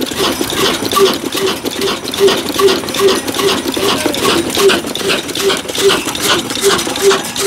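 Old Ruston & Hornsby horizontal diesel engine running steadily at slow speed: an even beat about two and a half times a second, with a metallic clatter between the beats.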